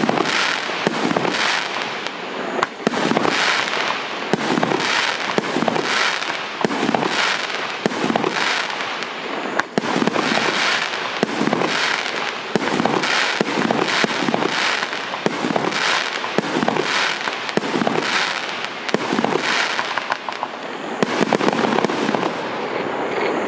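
A 50-shot, 1.2-inch consumer fireworks cake firing shot after shot in a steady rhythm, about one and a half shots a second.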